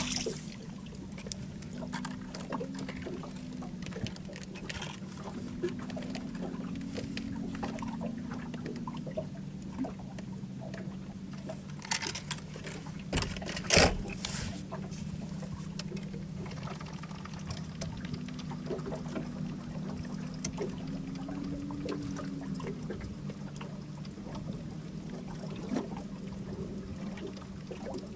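Water lapping and trickling against an aluminum fishing boat's hull over a steady low hum. A few sharp knocks come about twelve and fourteen seconds in, the second the loudest.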